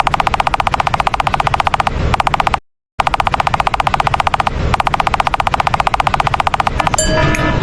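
Railroad crossing warning bell ringing in very fast, evenly repeated strikes, more than ten a second. It cuts out briefly about three seconds in, then rings again until plucked-string music comes in near the end.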